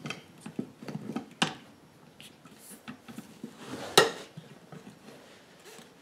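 Steel tire spoons clinking and scraping against each other and the metal wheel rim as they are worked in between the tire bead and the rim of a small lawn tractor wheel. Scattered light knocks, with a sharp metal clank about four seconds in as the loudest.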